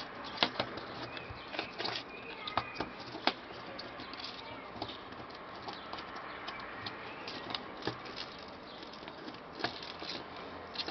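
Fingers picking through a clear plastic compartment box of fishing hooks: scattered, irregular small clicks and rattles of plastic and metal over a steady background hiss.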